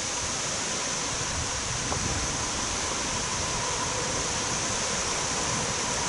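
Steady wind noise on the microphone, with a freight train's locomotives approaching in the distance, heard only faintly under the wind.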